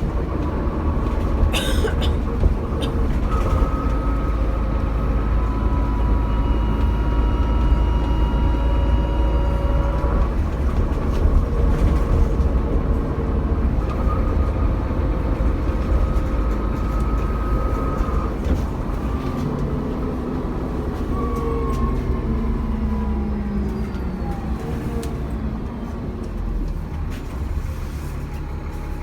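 Dennis Trident double-decker bus heard from on board: the diesel engine runs under a heavy low rumble, with a turbocharger whining in steady whistling tones above it. From about 19 s the whine and engine note fall in pitch together and the sound grows a little quieter as the bus eases off.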